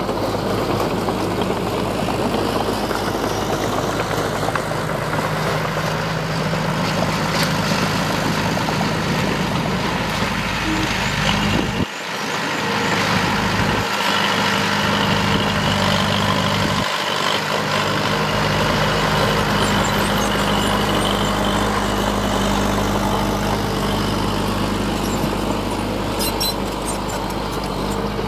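Heavy diesel engines of earthmoving machinery running steadily with a low rumble. The low rumble cuts out abruptly a few times midway, then resumes.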